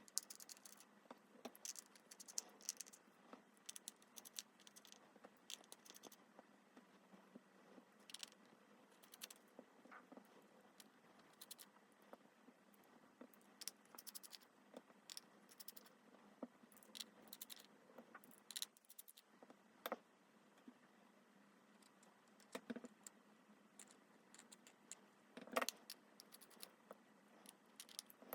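Faint, irregular small clicks and taps of metal repair tools against a smartphone's disassembled hinge parts, as the hinge is worked apart by hand.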